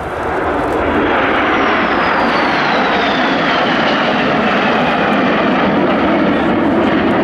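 Formation of Canadair NF-5 jet fighters, each with twin General Electric J85 turbojets, flying past: a loud, steady jet roar that swells in the first second. A thin high whine glides down in pitch as the jets go by.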